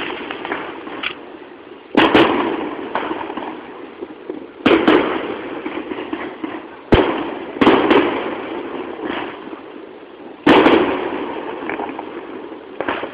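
Aerial firework shells bursting: about six sharp booms a second or two apart, each trailing off over a second or two, with a few fainter pops between them.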